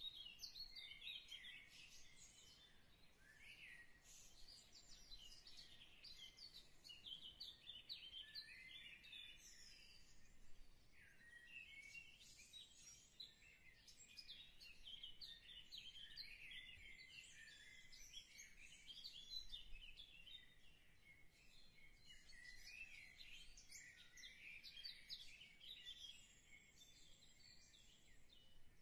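Faint birdsong: many small birds chirping and twittering in quick, high calls.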